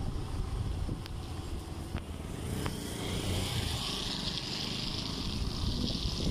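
Motorcycle on the move, heard from the pillion seat: a steady low rumble of engine and wind on the microphone, with a hiss coming in about halfway through.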